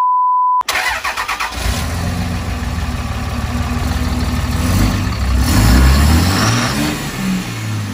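A short censor bleep, then a pickup truck's engine cranks for about a second, catches and runs, revving up around the middle before settling back. The truck's output shaft has snapped, so the transmission output spins with no driveshaft attached.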